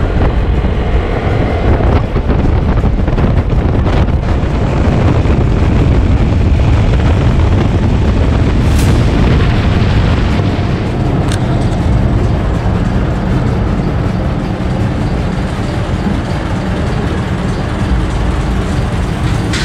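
Heavy wind buffeting on the microphone of a camera riding along on a motorcycle, a loud steady rumble with engine and road noise under it.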